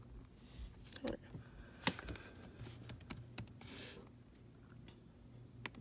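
Typing on a MacBook Air laptop keyboard: a handful of irregular key clicks as a web address is entered.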